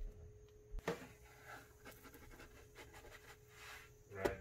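Spatula scraping and tapping in a nonstick frying pan as a pancake is pressed down and then flipped, with two sharp knocks: one about a second in and a louder one near the end.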